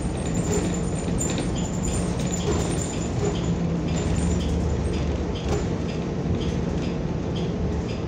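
Inside a New Flyer XN40 natural-gas city bus under way: a steady engine and road drone, with light squeaks and rattles from the cabin.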